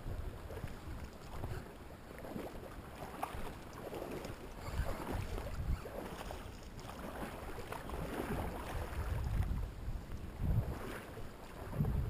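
Wind gusting on the microphone in low rumbles that come and go, over the steady rush of a river.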